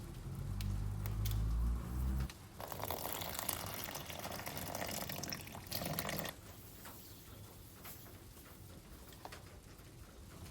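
Water running from a kitchen tap for about four seconds, as for pizza dough, after a low rumble at the start; then a few small kitchen clicks and knocks.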